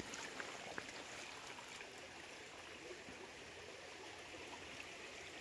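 Faint, steady trickle of a small forest stream running over rocks, with a single click at the very start.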